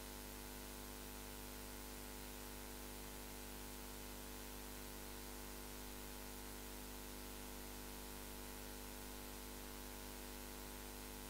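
Faint, steady electrical hum with hiss: a set of unchanging tones under an even hiss, with nothing else happening.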